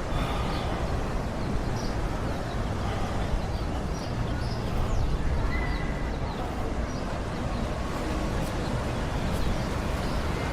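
Steady outdoor ambience: a low rumble of wind and distant traffic, with faint distant voices and scattered short high chirps.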